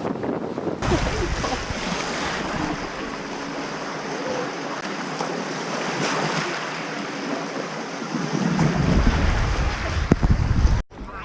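Strong wind buffeting the microphone over rushing sea water, the low rumble heaviest near the end before the sound cuts off suddenly.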